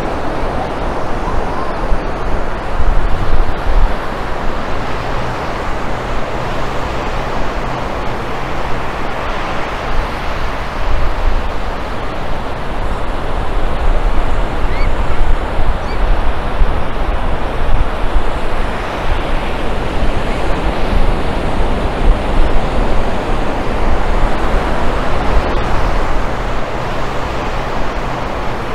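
Ocean surf breaking and washing up the beach as a steady rush that rises and falls every few seconds, with low rumbles of wind on the microphone.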